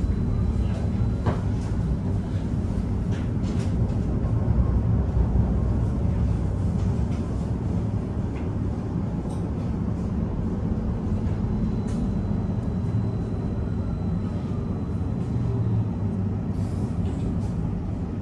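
Suzhou tram running: a steady low rumble with scattered clicks and rattles, and a faint high whine for a few seconds in the second half.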